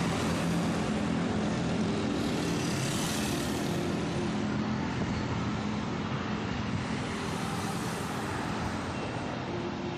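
Steady street traffic noise, a continuous hum of passing vehicles, easing slightly toward the end.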